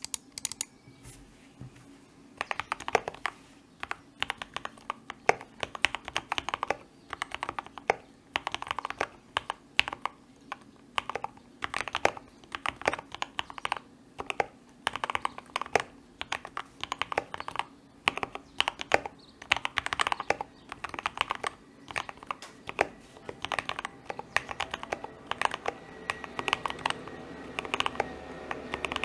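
Typing on a KBD75 V2 custom mechanical keyboard with an aluminium plate, PCB and case foam, and Gateron Ink Black linear switches lubed with Krytox 205g0 and fitted with switch films: quick runs of keystrokes broken by short pauses, starting about two seconds in. A faint background hum grows near the end.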